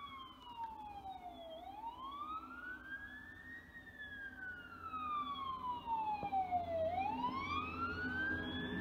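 Emergency vehicle siren on a slow wail, its pitch falling and rising again in long sweeps about every five seconds. A low engine rumble grows louder under it near the end.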